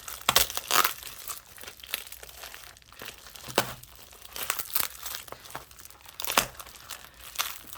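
Packaging being crinkled and torn open by hand, in irregular crackles and rustles with a few sharper rips.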